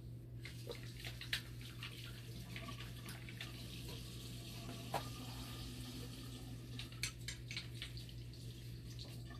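Tap water running into a sink as small dialysis-machine parts (filter and O-ring holder) are rinsed by hand to wash off leftover bicarbonate and acid. A few light clicks of the parts being handled, over a steady low hum.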